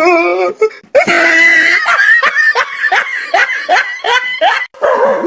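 A person laughing hard in quick repeated bursts of about three or four a second, after a drawn-out voice at the start.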